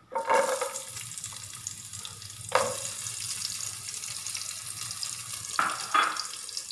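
Slivered coconut dropped into hot coconut oil in a pot, sizzling at once and frying with a steady hiss. A few sharp knocks come through it, one about two and a half seconds in and two near the end.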